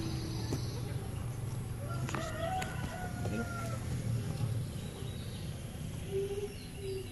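A rooster crowing once, one long call lasting about a second and a half, starting about two seconds in.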